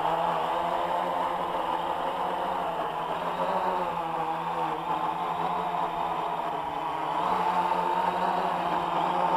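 AEE AP10 Pro quadcopter's four electric motors and propellers hovering and flying close by: a steady buzzing hum whose pitch wavers slightly, getting louder again near the end.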